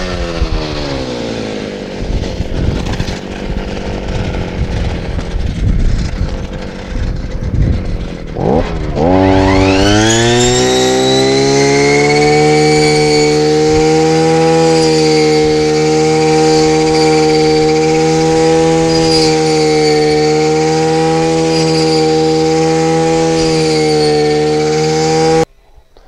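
Small engine of a shoulder-slung brush-cutter-type wheat reaper. Its revs drop to an uneven idle in the first couple of seconds. About nine seconds in it revs up and holds a steady high speed while cutting standing wheat, then stops abruptly just before the end.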